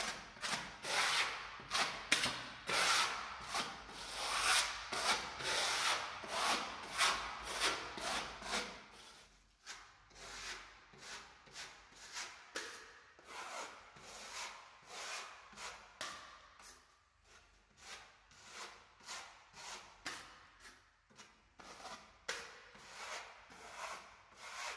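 A metal spatula scraped in short repeated strokes across a freshly painted wall, about two strokes a second, working decorative paint to blend the colours. The strokes are louder for the first several seconds, then softer.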